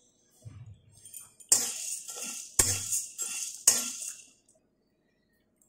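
A metal spatula scrapes and clanks against a metal kadai while stirring dry sago pearls, which rattle against the pan. Three sharp strikes come about a second apart, with scraping between them, and the stirring stops well before the end.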